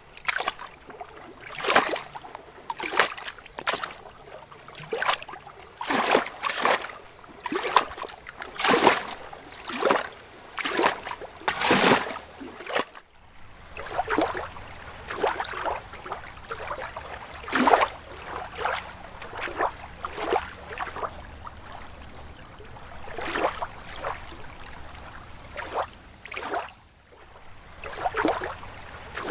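Water lapping and sloshing in short, irregular splashes, about one a second. About 13 seconds in there is a brief break, after which the splashes are softer and further apart over a faint low hum.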